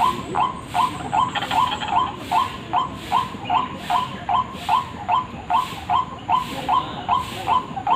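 White-breasted waterhen's lure call: a steady run of short, harsh 'ruak' calls, about two and a half a second, without a pause.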